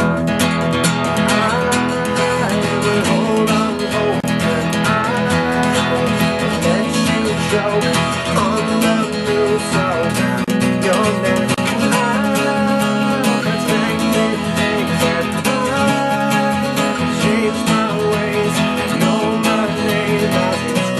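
Acoustic guitar in open D tuning, capoed at the second fret, strummed in a steady rhythm through ringing chords.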